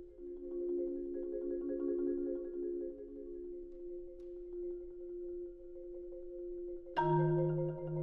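Solo concert marimba played with four yarn mallets: soft rolled notes held in the middle register, then a louder struck chord with a low bass note about seven seconds in that rings on.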